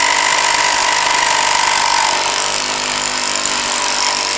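Reciprocating saw cutting through a dirt bike handlebar to shorten it, running steadily at an even pitch.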